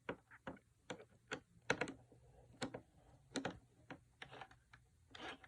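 Irregular light clicks and knocks of hard plastic parts being handled on a Roomba robot vacuum during a battery swap, with a couple of brief scrapes about four and five seconds in.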